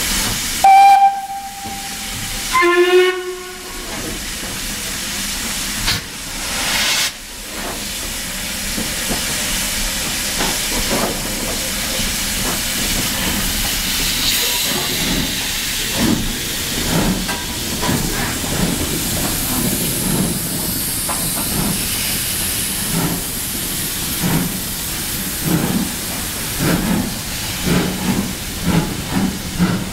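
Double-headed steam tank locomotives, Ivatt Class 2MT 41241 and BR Standard Class 4 tank 80002, sound two short whistles, a higher steady one and then a lower wavering one. Steam then hisses steadily from the cylinders as they start away, and their exhaust beats come in a slow, uneven rhythm from about halfway through, growing more distinct near the end.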